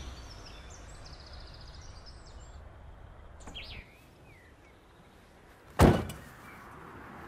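A van's cab door shutting with one sharp slam about six seconds in, over quiet outdoor ambience with a few bird chirps in the first half.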